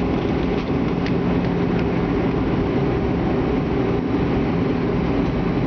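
Steady engine and airflow noise inside the cabin of an Airbus airliner, with a constant low hum and a few faint clicks.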